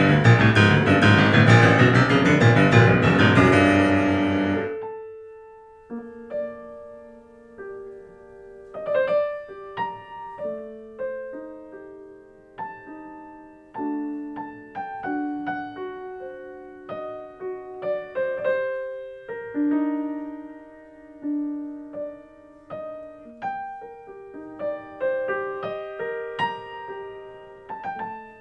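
Piano music: a loud, dense passage for about the first four seconds that dies away, then a slow, sparse line of single notes, each ringing out before the next.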